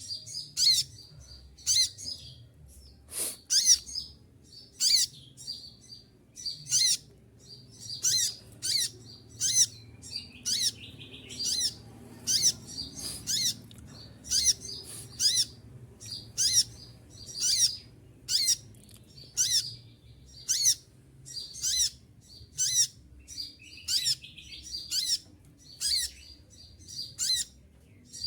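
Konin (kolibri ninja) sunbird calling over and over: sharp, high, piercing chips about once a second, each with a short falling slide, kept up steadily while the bird is in moult.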